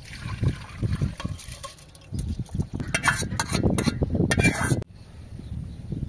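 Soaked rice and water poured from a metal bowl into a pot, splashing and trickling, with sharper spattering in the middle. The sound cuts off abruptly a little after two-thirds of the way through.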